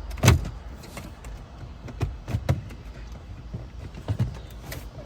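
Plastic lower dash trim panel of a Ram 1500 being pulled loose by hand: a loud sharp snap near the start, then a series of smaller clicks and knocks as it comes free.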